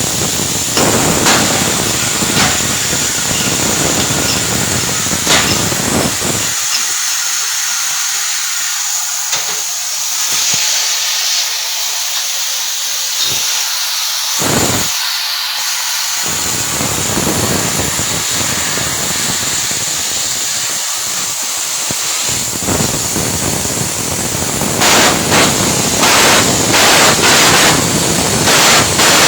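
Electric arc welding: the arc hissing and crackling steadily, with scattered sharp pops.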